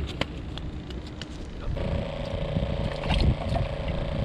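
Wind rumbling on the microphone with scattered light clicks. About two seconds in, a steady buzzing hum starts: the small battery-powered aerator pump on a live-bait bucket running as a hand reaches into the bucket.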